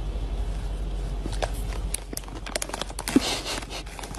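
Plastic snack-chip bag crinkling and crackling as a cat rummages with its head inside it, in quick irregular crackles that get busier after about a second.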